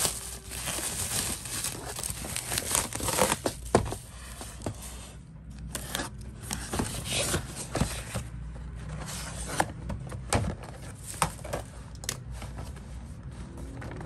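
Plastic bubble wrap crinkling and rustling as it is pulled off a cardboard box, densest in the first few seconds. It then gives way to scattered scrapes and taps as the cardboard box is opened and the product box inside is handled.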